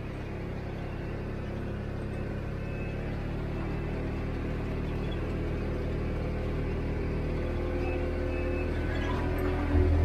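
A vehicle's engine and tyres rumbling steadily as it drives slowly along a dirt road, heard from inside the cab. Music fades in and grows louder near the end.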